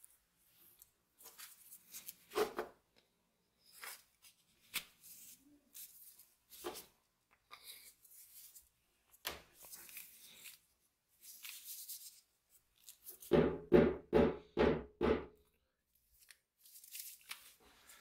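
Restored pruning shears being handled and put back together, with scattered clicks and rustles of metal and plastic grips. Near the end the shears are worked open and shut about five times in quick succession, the loudest sounds.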